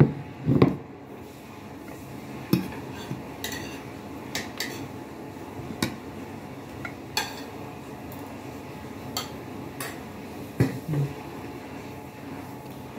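A plate knocked down onto the table about half a second in, then scattered light clinks of a metal fork against plates and bowls while eating, a dozen or so at irregular intervals.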